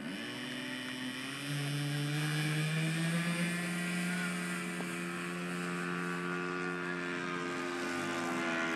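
RC Gee Bee model airplane's motor and propeller throttling up for takeoff: the pitch rises over the first second or so, the sound steps up louder about a second and a half in, and it then holds steady through the takeoff roll and lift-off.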